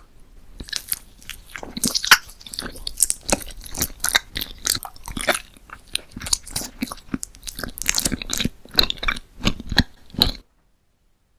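Close-up chewing and biting of crunchy food: a quick, irregular run of crunches that cuts off suddenly about ten seconds in.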